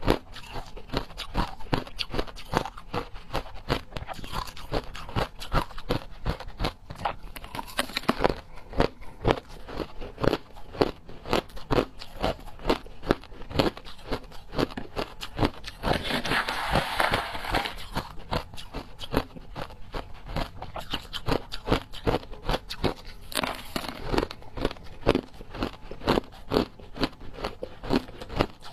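Crushed ice being bitten and chewed, an irregular run of sharp crunches, with a denser, louder stretch of crunching about sixteen seconds in.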